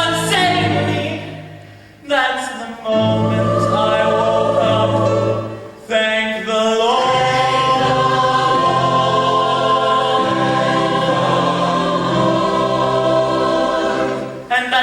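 Musical-theatre ensemble of many voices singing short phrases, then holding a long chord from about seven seconds in until just before the end.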